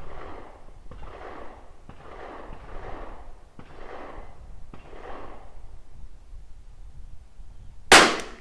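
Five soft breaths about a second apart, then after a short pause a single sharp shot from a Tikka T1x .22 LR rifle near the end, the loudest sound by far.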